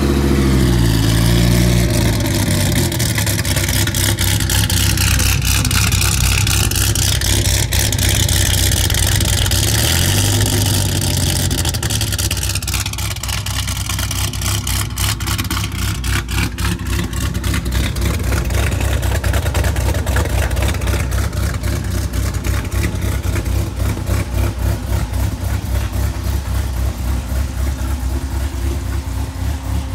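Dodge Viper GTS's stroked 8.3-litre V10 idling through a catless exhaust with an even, fast pulse, settling down from a rev in the first second or so and giving a small blip of revs about ten seconds in.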